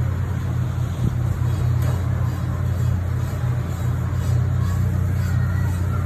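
A steady low machine hum that holds its level throughout, with faint higher tones coming and going.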